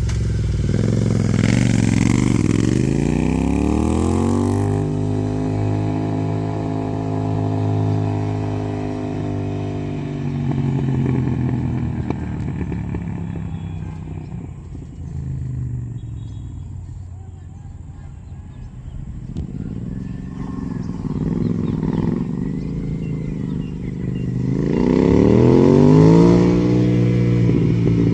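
Royal Enfield Continental GT 650's 648 cc parallel-twin engine through an AEW TE-103 megaphone silencer, revving up over the first few seconds and holding a steady note. The sound fades to its quietest midway, then returns and revs up again to its loudest near the end.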